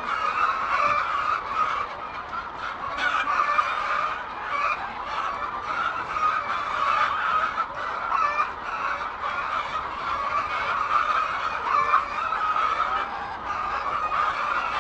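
A flock of chickens clucking continuously, many overlapping calls at once.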